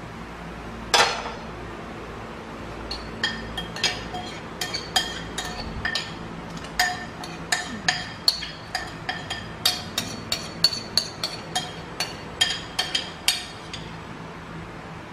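A metal spoon clinking and scraping against a ceramic bowl and the rim of an aluminium pot, dozens of quick ringing clinks, two or three a second, as food is scraped from the bowl into the pot. About a second in, a single louder clank from the metal pot lid being set down.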